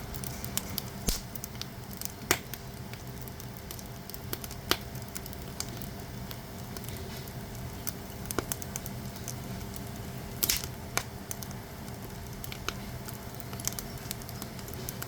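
Firewood burning in a traditional Korean agungi firebox: a steady low rumble of the fire with a soft sizzle, broken by sharp crackles and pops every second or two, the loudest cluster about ten seconds in.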